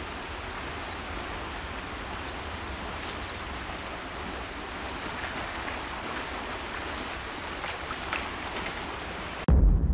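Mountain river flowing, a steady rush of water with a few faint high chirps. It cuts off abruptly near the end, giving way to a loud deep rumble.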